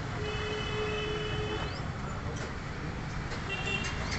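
Street traffic noise, with a vehicle horn sounding steadily for about a second and a half near the start.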